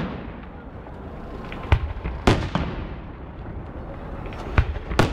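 Fireworks display: about five sharp bangs of aerial shells bursting, two or three close together about two seconds in and two more near the end, each trailing off in an echo over a continuous low crackle and rumble.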